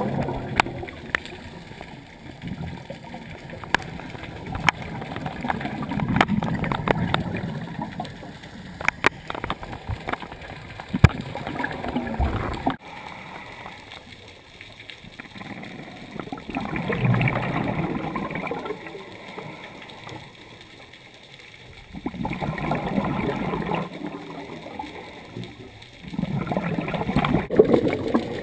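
Scuba regulator exhaust bubbles heard underwater: gurgling swells of bubbling that come and go every few seconds with the divers' breathing. A few sharp clicks about ten seconds in.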